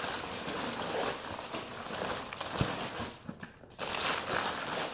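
Clear plastic packaging crinkling and rustling as it is pulled off and handled, with a short lull about three and a half seconds in.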